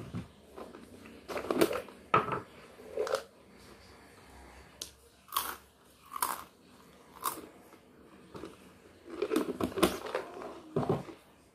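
Close-up eating sounds: crisp food bitten and chewed, in a series of sharp, irregular crunches that bunch together near the end, with handling of a plastic food jar.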